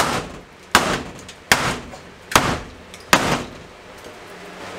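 Wooden wall stud of a mobile home being worked loose from its stapled framing: five sharp knocks, evenly spaced about once every 0.8 seconds.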